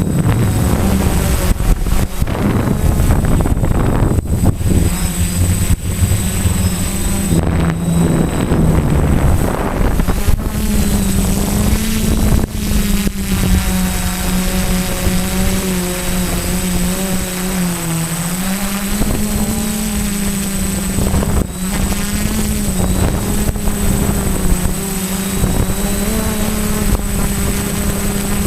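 Quadcopter's electric motors and propellers humming steadily, the pitch sagging briefly a little past halfway and then climbing back as the throttle changes. Rough wind noise on the microphone in the first part.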